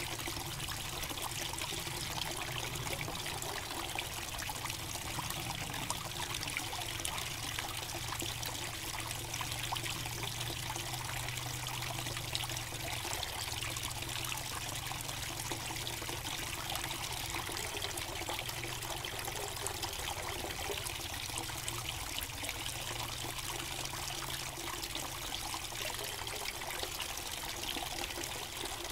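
Small garden-pond waterfall trickling steadily as water spills from a stacked-rock spout into the pond.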